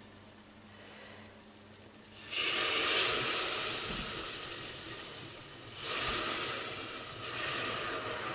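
Asparagus broth poured into a hot butter-and-flour roux, hissing and sizzling. The hiss starts suddenly about two seconds in and fades, then rises again about six seconds in as more broth goes in.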